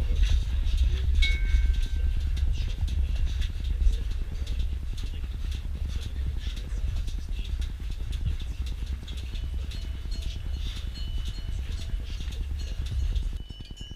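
Milking machine's vacuum pump running with a steady low mechanical rumble that cuts off suddenly near the end.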